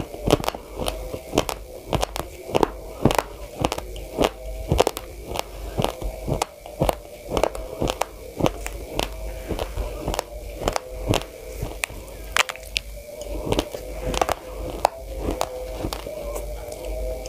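Mouthful of raw, uncooked white rice being chewed, the hard grains cracking between the teeth in a close, irregular run of sharp crunches, about two or three a second.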